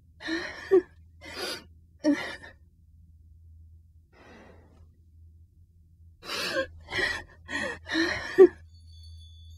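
An animated character sobbing in short, gasping breaths: three in the first two and a half seconds, then a quicker run of four or five from about six seconds in, over a steady low hum.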